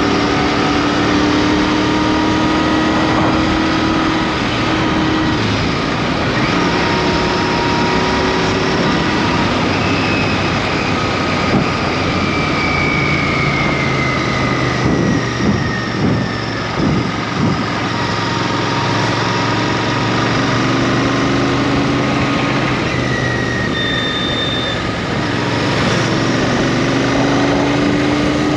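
Royal Enfield Interceptor 650's parallel-twin engine running on the move, its note slowly rising and falling with the throttle, over a steady rush of wind and road noise. A few short knocks come about halfway through.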